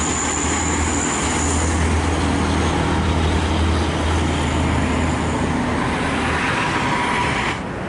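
Intercity buses' diesel engines running with steady road traffic noise: a deep engine drone over an even hiss, easing off about six seconds in. The sound drops suddenly near the end.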